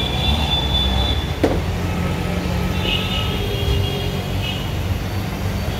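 Steady low rumble of street traffic, with a single sharp click about a second and a half in.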